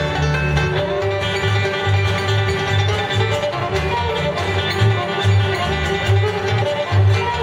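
Bluegrass band playing live: banjo, fiddle and acoustic guitars over a line of low notes that moves in a steady beat.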